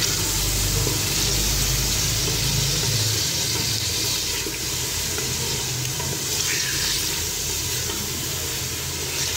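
Beef pieces sizzling steadily in hot oil in an aluminium pressure cooker while being stirred with a wooden spoon, browning the meat.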